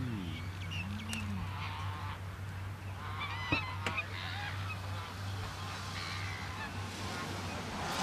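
Waterfowl calling in a few short honk-like bouts, with a sharp click about three and a half seconds in, over a steady low hum.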